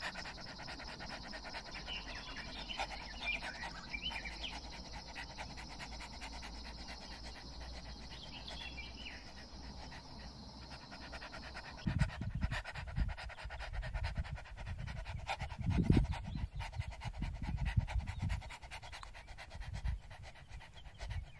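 A dog panting in quick, even breaths; about halfway through, the breaths turn into louder, irregular low puffs.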